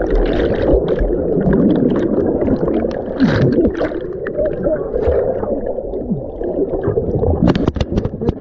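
Water rushing and air bubbles gurgling, heard through a submerged camera, as a dense muffled churn. A few short falling warbles come from the bubbles.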